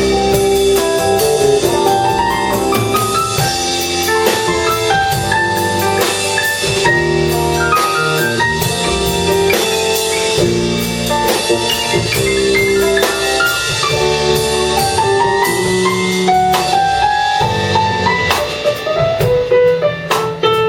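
Live instrumental jazz band playing: piano runs over bass and a drum kit with busy cymbal and drum hits.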